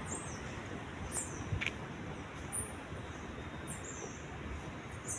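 Small birds chirping in short high notes here and there over a steady hum of distant city traffic.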